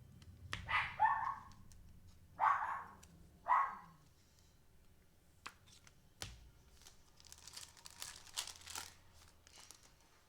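A dog barks three times, then a trading-card pack wrapper is torn open and crinkled.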